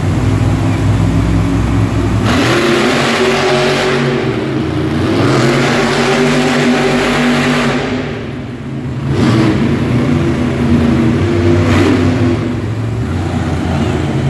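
Monster truck's supercharged V8 engine revving hard, its pitch rising and falling as the truck accelerates and turns on the dirt. The level dips briefly about eight seconds in, then climbs again.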